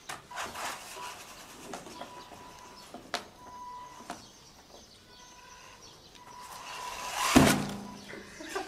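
A WLToys 144001 electric RC buggy running at a homemade jump ramp: its sound builds over about a second, then a loud knock comes as it hits the ramp about seven seconds in. A few lighter clicks come earlier.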